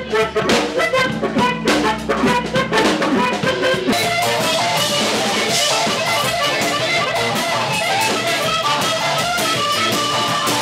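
Blues band music with guitar and drums: a busy drum beat for about the first four seconds, then the drums drop out and the playing turns to long held notes.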